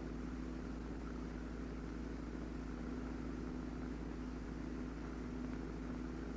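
A steady, low mechanical drone with a constant hum underneath, unchanging throughout.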